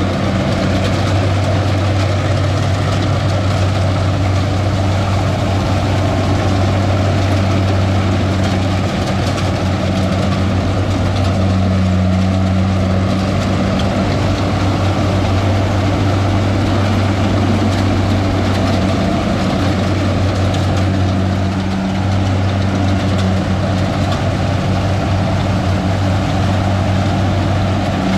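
Kubota DC70 rice combine harvester working through lodged rice in mud: its engine runs steadily with a strong low hum, under a dense mechanical noise from the machine.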